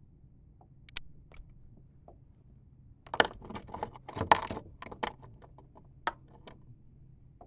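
Fishing tackle being handled: a few sharp clicks, then a dense burst of small metallic clicks and rattles around the middle.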